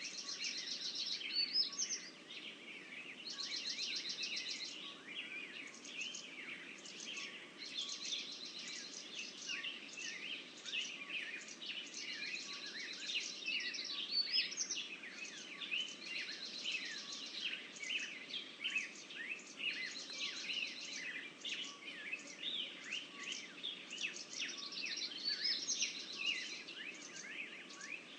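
Several songbirds singing together in a busy chorus of chirps, one bird repeating the same short trilled song phrase every few seconds.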